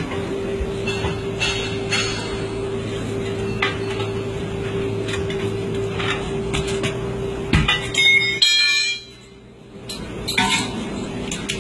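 Steel tyre iron knocking and clanking against a truck wheel's steel rim as a truck tyre is levered off by hand, over a steady hum. A loud metallic clang with ringing comes just before eight seconds in, then the sound drops away briefly.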